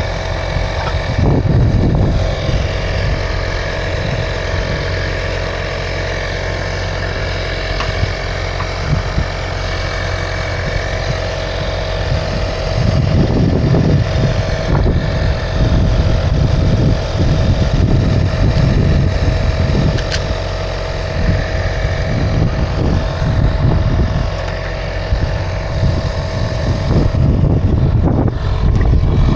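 A motor vehicle driving: a steady engine drone with constant road rumble that swells in stretches.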